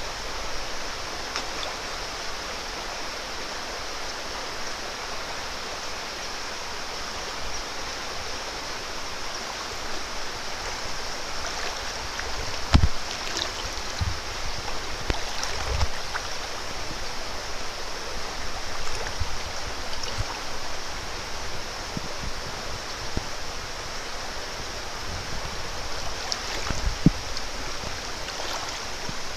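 Small stream running steadily over a shallow gravel bed, an even rushing and babbling of water. A few short low thumps come through around the middle and once near the end.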